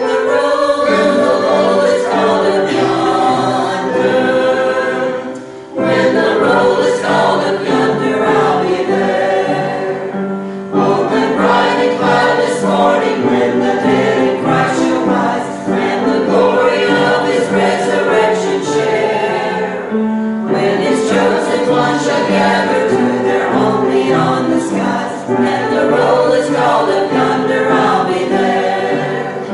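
Small church choir singing, with brief pauses between phrases.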